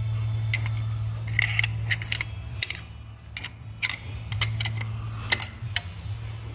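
Irregularly spaced sharp metallic clicks and clinks over a steady low hum.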